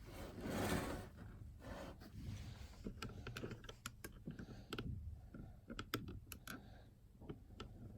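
Small plastic shaver/trimmer attachments and accessories being handled and packed into a travel case: a brief rustle near the start, then irregular light clicks and taps.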